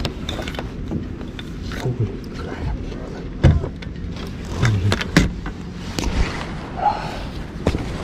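Irregular knocks, bumps and clicks from gear being moved about inside a plastic fishing kayak, with a few short low grunts or breaths among them.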